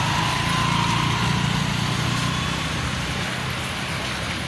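Street traffic: a motor vehicle's engine running close by, fading after about two seconds, over a steady background of street noise.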